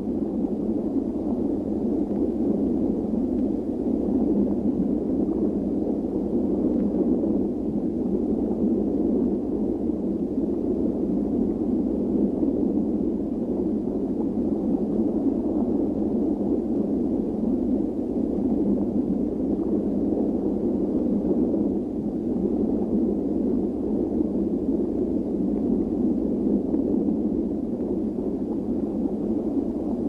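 Steady, dense underwater rushing noise with a gurgling quality, even throughout and without any distinct events.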